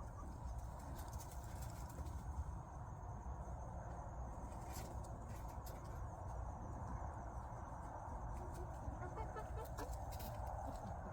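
Young chickens in a pen clucking softly now and then, with a few faint short calls close together near the end, over a steady low rumble.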